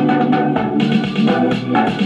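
Gqom dance track that starts suddenly: electronic music with a steady drum beat and organ-like keyboard chords.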